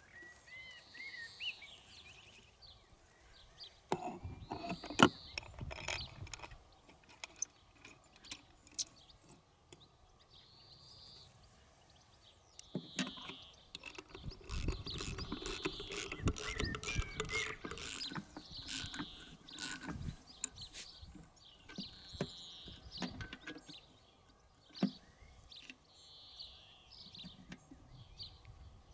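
Clicks, clatter and ratcheting from a dog-racing lure machine's drag wheel, pulley wheel and covers being taken off and fitted by hand. The busiest stretches come about four seconds in and from about thirteen to twenty seconds. Birds chirp in the background.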